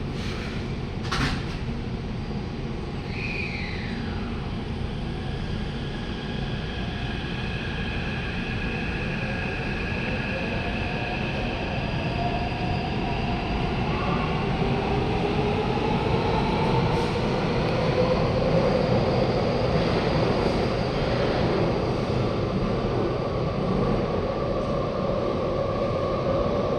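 Taipei Metro C371 electric train pulling out of Danfeng station: a continuous rumble of wheels and track, growing gradually louder. From about halfway, the traction motors' whine rises in pitch as the train picks up speed. A sharp click comes about a second in.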